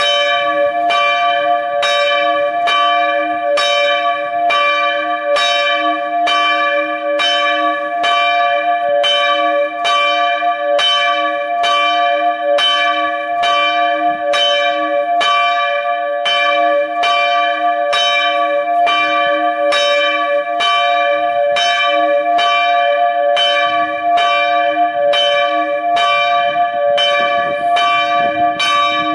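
Single Rincker-cast bronze church bell, strike tone d'', swinging and struck by its clapper at a steady, even pace, each stroke ringing on into the next.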